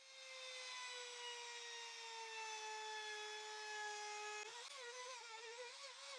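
Bosch compact palm router with a corner-rounding bit, heard faintly as a high steady whine that sinks slightly in pitch. From about four and a half seconds in, the pitch wavers up and down as the bit cuts into the pine edges, rounding them over.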